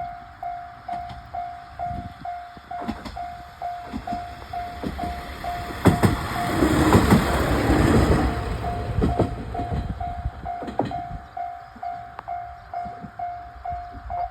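Japanese level-crossing warning bell dinging about twice a second while a Heisei Chikuho Railway diesel railcar passes over the crossing. The wheels click over the rail joints, and the train is loudest about halfway through. The bell cuts off abruptly at the very end.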